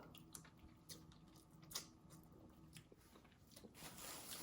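Near silence with faint chewing and a few soft, short clicks of someone eating, the most noticeable a little under two seconds in.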